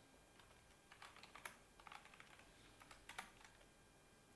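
Faint computer keyboard typing: scattered keystrokes, some in quick short runs.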